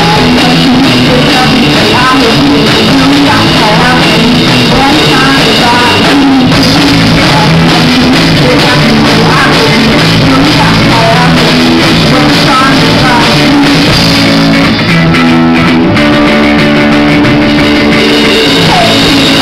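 Live rock band playing loudly: electric guitars, bass guitar and drums, with a woman singing.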